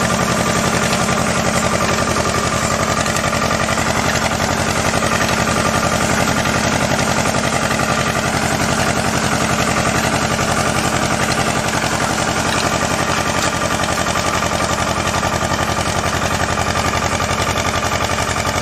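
Tractor engine running steadily with a fast, even chugging pulse while pulling a ginger seed planter, with a steady thin whine over it.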